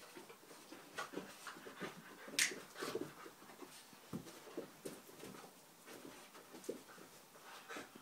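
Two Dalmatians, an adult and a puppy, play-fighting: panting and scuffling with irregular light clicks and bumps, one sharper click about two and a half seconds in.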